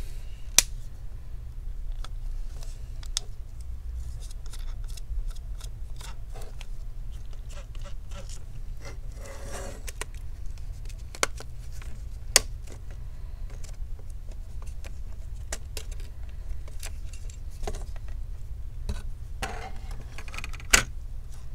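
Scattered small clicks and light scrapes of plastic and metal as an MSI MS-16Q2 laptop's cooling-fan housing is handled and worked loose from the motherboard and heatsink, with a few sharper clicks and two short scraping, rustling spells. A steady low hum runs underneath.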